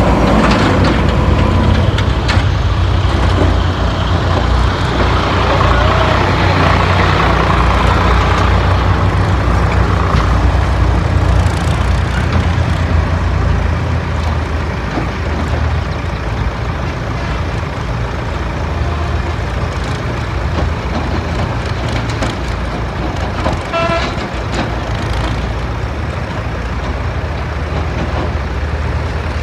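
Diesel engines of a tractor and a JCB backhoe loader running steadily under load while loading soil, a little louder in the first half. A brief beep sounds about three-quarters of the way through.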